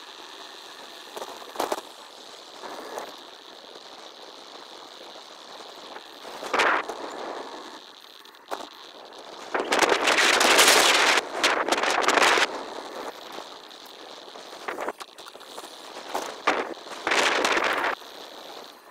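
Street and riding noise from a bicycle ride, sped up six times, so it comes as a steady hiss broken by short crackly bursts. The loudest burst, a wide hiss, starts about ten seconds in and lasts nearly three seconds.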